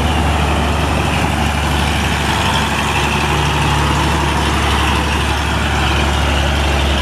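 Diesel engine of a loaded heavy cargo truck running steadily as the truck passes slowly close by.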